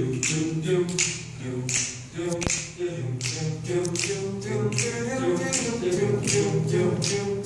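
Voices singing a cappella in harmony, with a sharp click on each beat keeping time.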